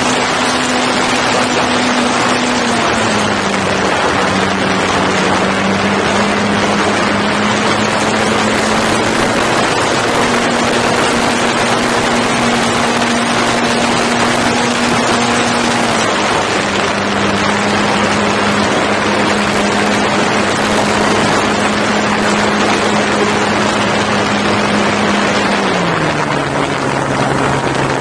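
RC P-51 Mustang model airplane in flight, heard from a camera on the airframe: the motor and propeller drone steadily under a heavy rush of wind. The pitch steps down and back up a few times and falls lower near the end as the throttle is eased back.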